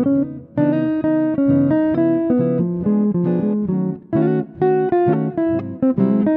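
Instrumental background music: plucked guitar playing a melody of distinct notes, with a brief dip between phrases about half a second in and again about four seconds in.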